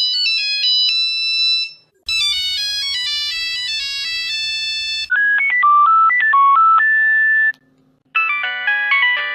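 Several different Nokia mobile phone ringtone melodies playing one after another, each a short electronic tune of steady beeping notes. The tune changes about two seconds in and again about five seconds in, and there is a short silence at about seven and a half seconds before another melody starts.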